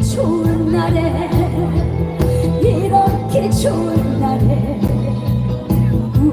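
Live trot song: a backing band playing a steady beat and bass under a melody line, with the singer's voice.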